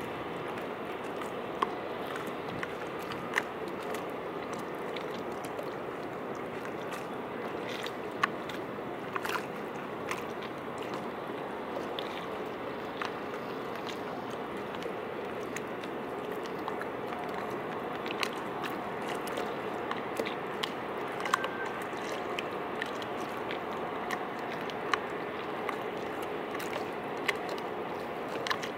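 Small waves lapping and sloshing against concrete quay steps, a steady wash of water with many scattered sharp clicks and pops.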